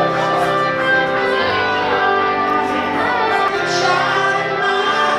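Background music led by guitar, at a steady level.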